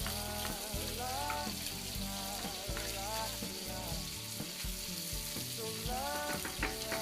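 Chicken and vegetables sizzling in a hot pan as they stir-fry, a steady hiss under a song's melody.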